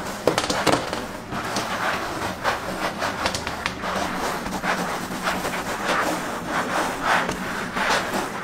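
Gloved hands pressing and smoothing a grainy dough mixture flat in a metal baking tray, making repeated irregular rubbing and scraping strokes.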